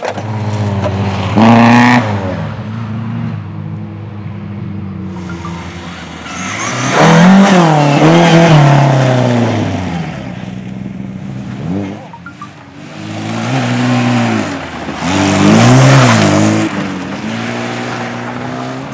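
Competition car engines revving hard, their pitch rising and falling through gear changes as the cars pass close by, with tyre noise. The loudest passes come about a second and a half in, around seven to nine seconds in, and near the end.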